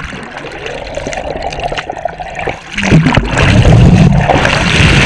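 Sea water sloshing and bubbling around a camera as it goes under the surface, with scattered sharp clicks. About three seconds in, a much louder steady low rumble takes over.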